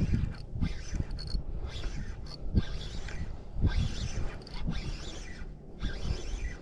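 Spinning reel being cranked as a hooked fish is reeled in, its gears creaking and clicking, with irregular low thumps throughout.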